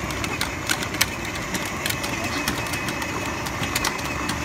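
Battery-powered ride-on toy jeep driving across asphalt: its drive motors and gearboxes run steadily while the hard plastic wheels crackle over grit on the surface.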